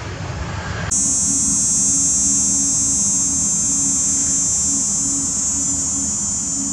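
Rushing jet noise that cuts off abruptly about a second in, giving way to a steady high-pitched turbine whine with a low hum underneath from the parked Boeing 757-200.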